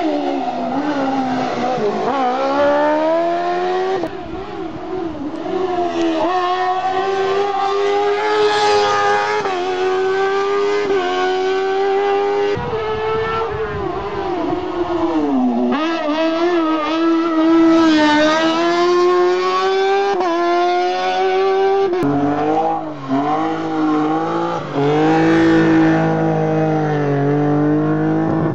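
Race car engines revving hard up a hillclimb course, in several separate passes: the engine note climbs through the gears, dips at each shift and when lifting for the bends, then climbs again.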